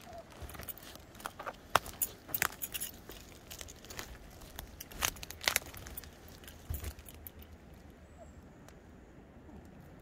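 Hiking boot footsteps on a forest floor of needles and dry twigs, with irregular sharp cracks of twigs snapping underfoot, thinning out after about seven seconds.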